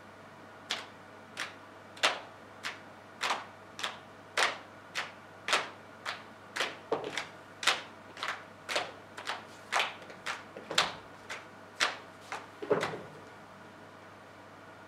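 A series of about two dozen sharp percussive hits made by performers on a stage, in an uneven rhythm of roughly two a second, with heavier thumps around seven and thirteen seconds in.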